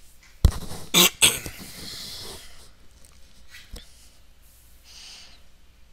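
A man coughing three times in quick succession close to the microphone, about a second in, then breathing out. A single small click follows later, and another faint breath near the end.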